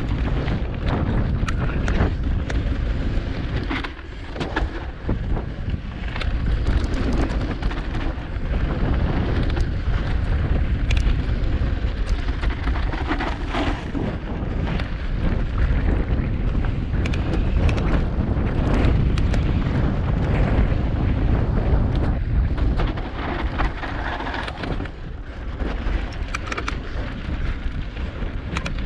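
Mountain bike ridden fast over rocky dirt singletrack: wind buffeting the bike-mounted camera's microphone and tyre rumble, broken by frequent sharp rattles and knocks as the wheels hit rocks.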